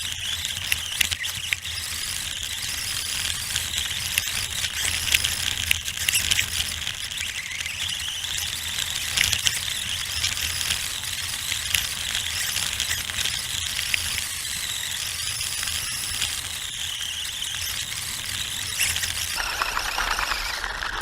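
Traxxas Slash 2WD RC truck driving, heard from a camera mounted on it: the electric motor and drivetrain whine, rising and falling with throttle, over a steady rattle and many small clicks from the chassis and wheels on rough ground. The sound fades away in the last second.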